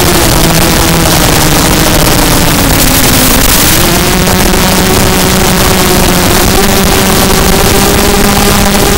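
Zabo 250 quadcopter's motors and 5x4 carbon fiber props whining in flight under a steady hiss of wind and air rush. The whine dips in pitch about two seconds in, then rises again about four seconds in and holds.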